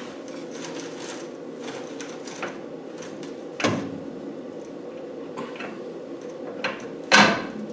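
Tie rod end and steering parts being handled and fitted by hand behind a Land Rover Defender's front hub: small metal clicks and scrapes, with two sharper clunks, one about three and a half seconds in and one near the end, over a steady background hum.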